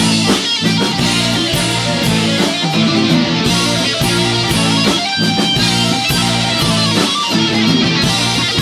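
Live progressive-rock band playing an instrumental passage, electric guitar prominent over bass, drums and keyboards.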